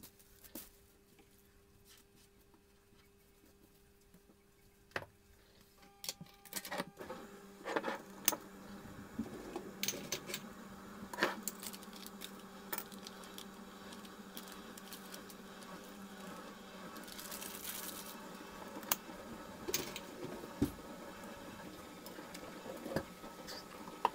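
Glass jars, dishes and lids being handled and set down on a wooden kitchen counter: scattered knocks and clinks over a steady low hum.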